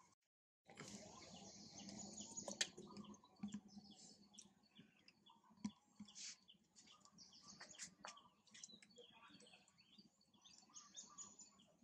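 Faint outdoor ambience with birds chirping and a few scattered clicks, after a moment of dead silence at the start.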